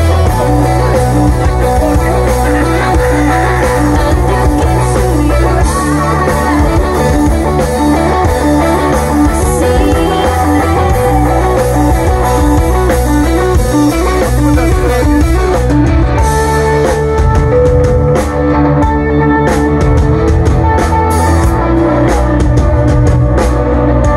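Live rock band playing: electric guitars work a short repeating riff over bass guitar and drum kit. The drum hits come through more sharply about two-thirds of the way in.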